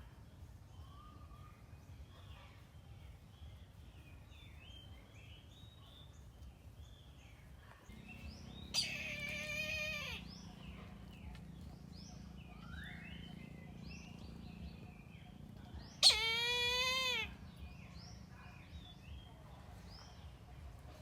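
A kite gives two loud, quavering, slightly falling calls, each just over a second long and about seven seconds apart. Faint chirps of small birds run throughout.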